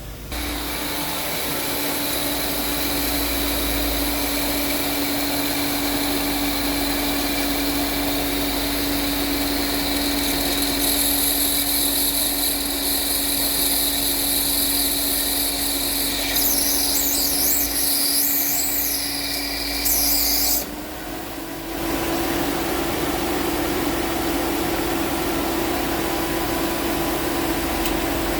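Ford Ka with the air conditioning switched on: a steady mechanical whirring noise with a constant low hum and higher whine, the abnormal noise that comes when the A/C is turned on. It starts abruptly, a warbling high whistle joins about sixteen seconds in, and near twenty-one seconds the noise drops out for about a second, then comes back at a slightly higher pitch.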